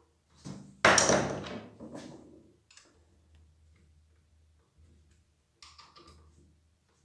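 Workbench handling noise as tools and small metal parts are moved about on a wooden worktop: a loud clatter about a second in that dies away over a second or so, and a lighter clink near the end.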